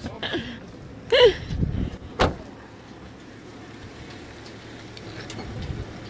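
A car door shutting once with a single sharp thump about two seconds in, just after a brief voice-like sound. Steady low outdoor background follows.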